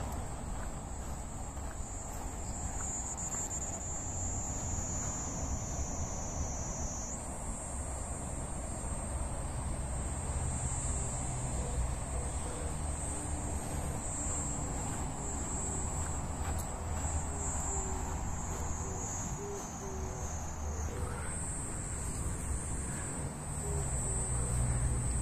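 A chorus of insects making a steady high-pitched drone that shifts pitch abruptly a couple of times, over a low rumble.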